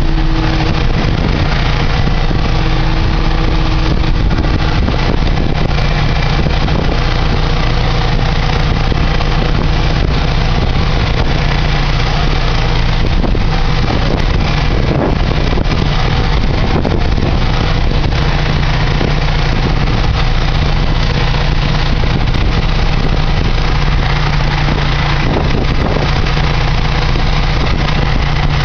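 Motorboat engine running steadily at a constant speed, loud and unchanging throughout.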